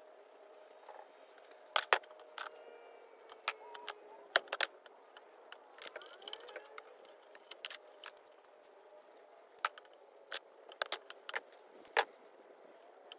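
Irregular sharp clicks and metallic clinks, about a dozen of them, from hand tools and wire ends being handled during inverter wiring work.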